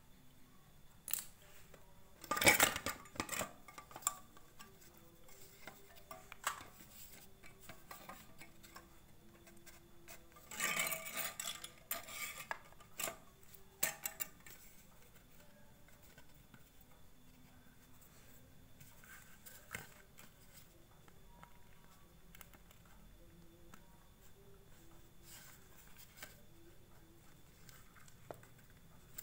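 Hard plastic and metal parts being handled and knocked together: scattered clicks with two louder bursts of clatter, the first about two to three seconds in and the second around eleven to twelve seconds in.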